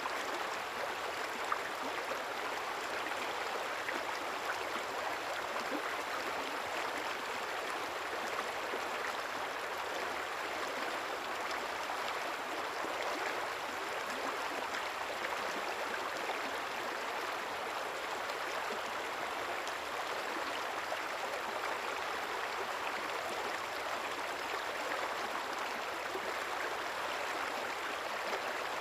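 Small river or stream flowing steadily over stones, an even babbling rush of water with no change.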